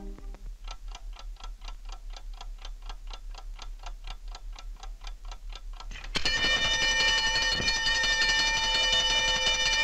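Wind-up alarm clock ticking steadily through a stethoscope, about four ticks a second. About six seconds in, its alarm bell goes off and rings loudly without a break.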